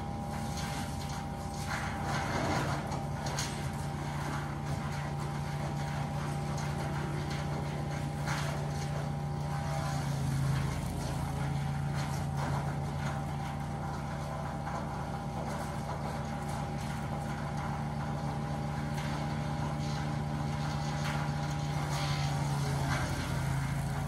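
Engine-driven wood chipper running steadily at full speed, with short crackling surges now and then as branches are fed in and chipped.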